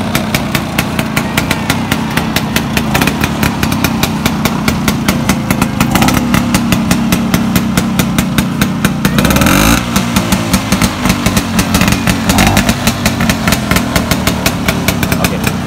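Classic Vespa 150 Sprint's two-stroke single-cylinder engine idling with a fast, even beat, rising briefly in pitch about nine seconds in.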